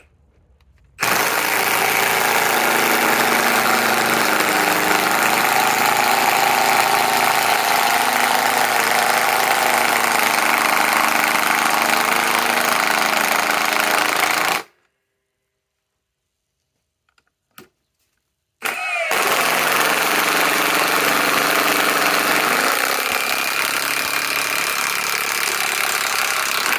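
Milwaukee M18 Fuel Gen 3 high-torque impact wrench hammering 8-inch lag screws in: one long run of about thirteen seconds, then after a pause a second run of about eight seconds.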